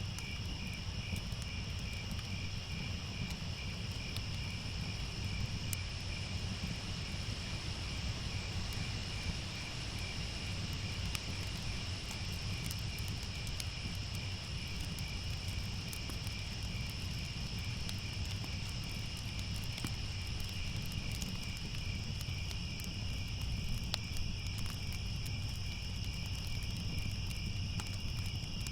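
Crickets chirping in a steady, continuous chorus over a low rumble, with faint scattered crackles of a fire.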